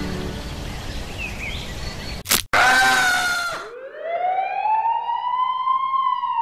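A sharp click and a short loud noisy burst with falling tones, then a single siren wail that rises slowly and starts to fall near the end.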